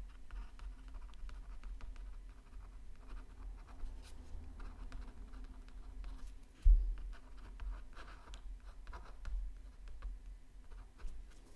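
Pen scratching across paper in many short, quick drawing strokes, with one low thump about seven seconds in.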